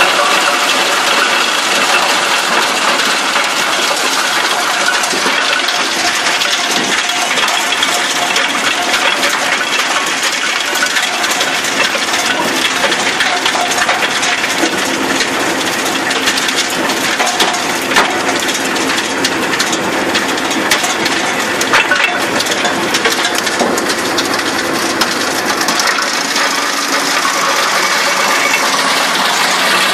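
Heizohack 6300 wood chipper chipping brush and branches fed in by its crane grapple: a continuous loud clattering rush of wood being shredded, with a couple of sharper cracks about two-thirds of the way through.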